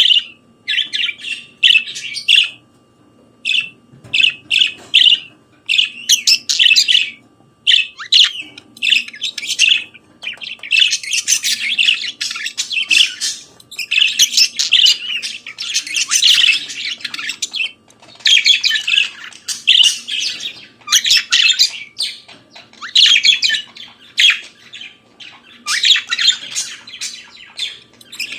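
Budgerigars singing: fast warbling chatter of chirps, trills and squawks, in phrases a second or two long with short breaks between.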